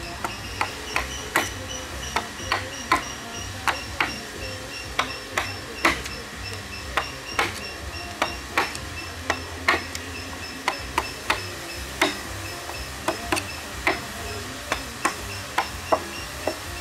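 Mallet striking a wood chisel to cut into a large hardwood log: a quick, uneven run of sharp knocks, about two or three a second.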